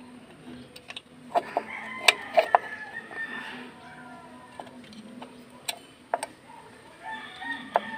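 A rooster crowing about a second and a half in and again near the end. Sharp metallic clicks and taps come from drum brake shoe hardware being handled and fitted, and these are the loudest sounds.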